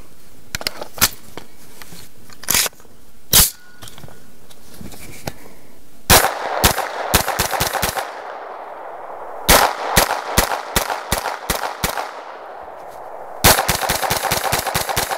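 Lone Wolf G9 9mm carbine firing 115-grain rounds: a few single shots in the first few seconds, then three fast strings of shots from about six seconds in, each string trailed by an echo.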